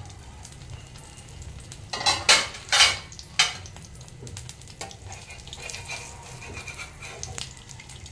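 Thin rice-flour batter crêpe sizzling steadily in a non-stick frying pan, with three or four loud clatters of metal cookware, a steel lid and spatula, between about two and three and a half seconds in.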